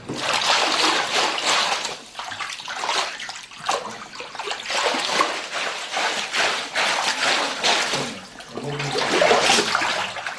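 Water sloshing and splashing in repeated surges as a length of indigo-dyed cloth is swished back and forth through a water-filled trough.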